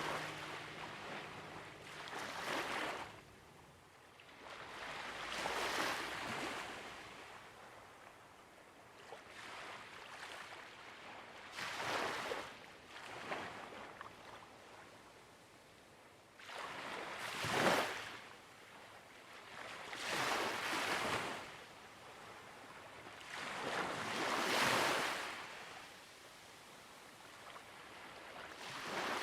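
Ocean surf: waves breaking and washing up the shore one after another, each a rising and falling rush of hiss, roughly every three to six seconds.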